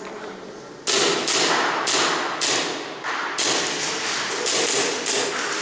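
Airsoft gunfire: about eight short, sharp bursts of shots and BB impacts in quick succession, starting about a second in.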